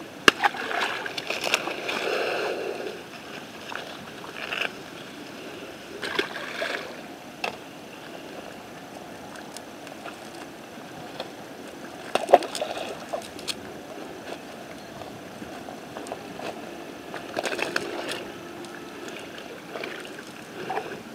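A nylon cast net being handled as fish are picked out of it on grass: scattered rustles, slaps and sharp clicks in short bursts over a steady background hiss.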